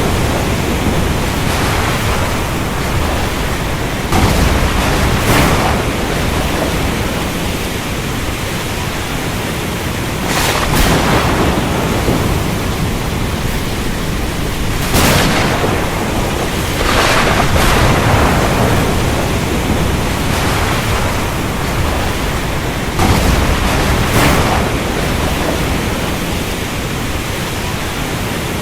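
Steady heavy rain in a thunderstorm, with several sharp cracks and swells of thunder over the rain every few seconds.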